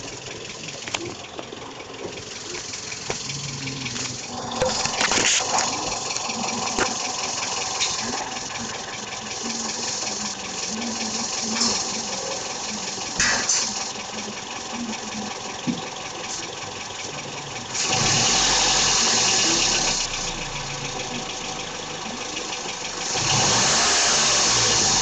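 Toyota Vios engine running, with a clicking that the owner hears at around 1000–2000 rpm; its cause is not known. The engine is revved up briefly twice, once about two-thirds of the way through and again near the end.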